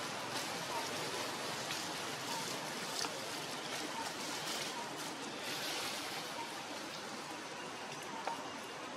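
Steady outdoor background hiss, with faint short squeaks now and then.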